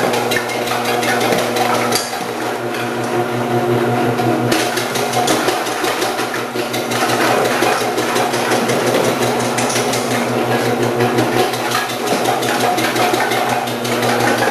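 Omcan HLC 300 commercial vegetable processor's motor running with a steady hum while its spinning disc slices carrots fed down the chute, giving a dense, rapid clatter of cutting.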